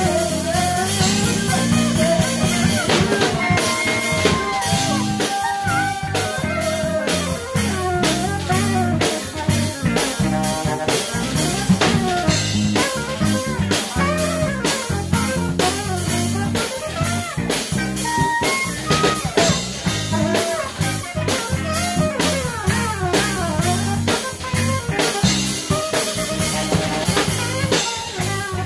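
Live band playing: several saxophones carry moving melody lines over a drum kit, electric guitar and a steady low bass part.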